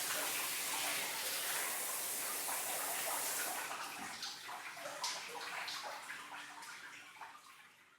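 Shower spray running steadily, then shut off about three and a half seconds in, leaving scattered drips and splashes that die away.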